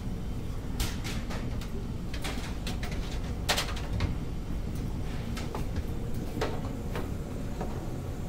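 Steady low rumble of a ferry's onboard machinery, with scattered short clinks and knocks of dishes and trays at a cafeteria counter. The sharpest knock comes about three and a half seconds in.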